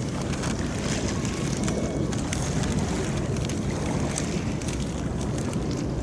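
Harbour water washing against the shore, mixed with steady wind noise on the microphone.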